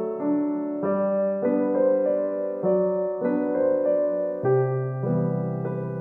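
Background piano music: sustained notes and chords, with a new chord about every half-second.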